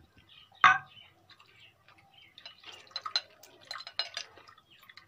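Milk poured from a glass bowl into a glass dish of cut fruit: one sharp knock about a second in, then a run of small irregular drips and splashes.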